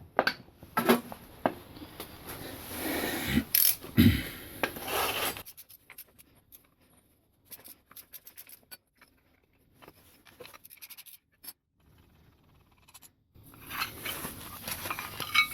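Metal parts of a cast-iron drill press vise being handled and worked by hand: a quick run of clicks and scraping, then a long stretch of near silence with a few faint ticks, then a steady hiss near the end.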